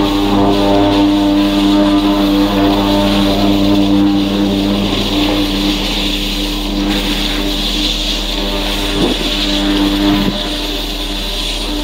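Snowboard edges scraping and hissing over packed snow as the rider turns, with a steady droning hum of several tones underneath.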